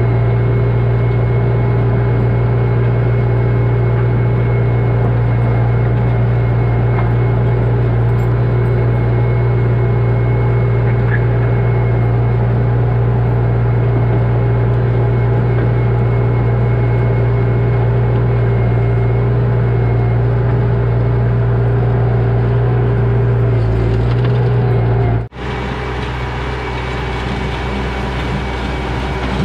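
Bobcat skid steer's diesel engine running at a steady, unchanging throttle. Near the end it cuts off abruptly and a quieter, rougher machine sound takes over.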